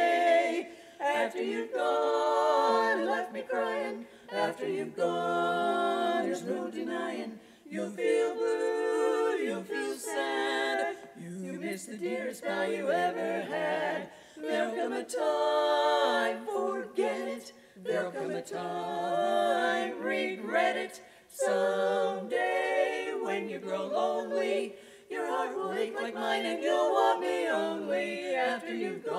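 Women's barbershop quartet singing a cappella in four-part harmony, the sung phrases broken by short pauses for breath.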